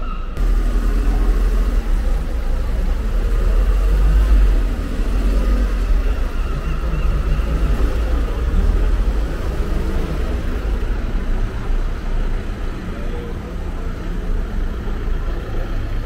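Outdoor street ambience dominated by a steady low rumble, with a noisy hiss above it that swells and fades.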